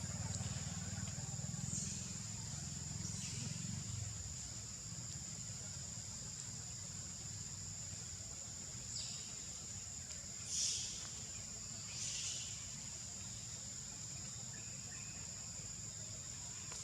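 Steady high-pitched drone of an insect chorus, with about five short high calls over it, the loudest about ten and a half seconds in.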